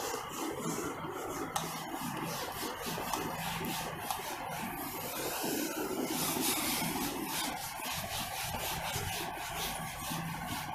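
Cloth being rubbed back and forth over a whiteboard to erase marker writing, in quick rhythmic swishing strokes of about three to four a second.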